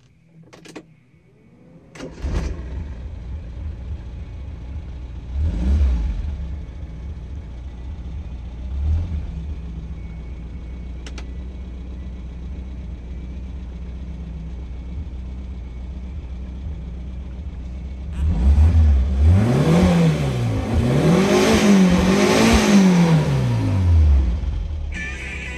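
Old Opel car engine starting about two seconds in and settling into an idle, with two short throttle blips and then three revs that rise and fall near the end. Car-radio music comes on just at the very end.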